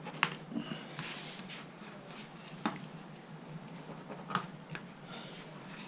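Light handling noises of marking-out work on a model aircraft wing: a few faint, isolated clicks and soft rubbing over low room hiss.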